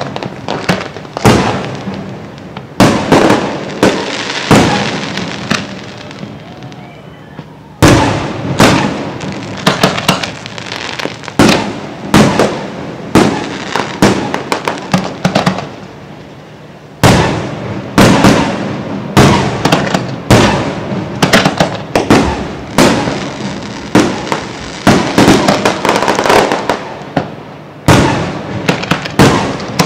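Fireworks display: aerial shells bursting in quick, irregular succession, each bang echoing away, with short lulls before the barrage resumes.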